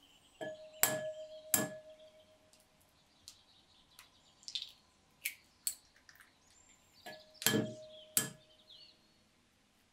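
Raw eggs knocked against the rim of a glass mixing bowl and cracked open: sharp knocks about a second in, each setting the glass ringing briefly, then softer clicks as the shell is pulled apart and the egg drops in, and another egg knocked twice near the end.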